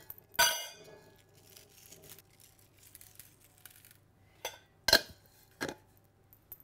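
Kitchen glassware clinking as it is handled on a worktop: one sharp, ringing clink about half a second in, then three short clinks and knocks around five seconds in, with faint handling noise in between.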